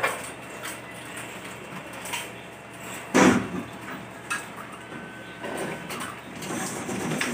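Scattered knocks and light metallic clatter as a threaded steel hanger rod is handled and pushed up against the ceiling, with one louder knock about three seconds in.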